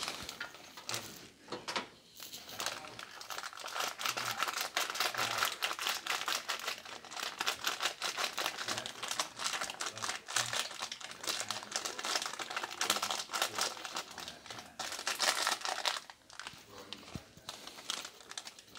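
Plastic seasoning packet crinkling as it is squeezed and shaken to empty powder into a pot, with brief pauses about two seconds in and near the end.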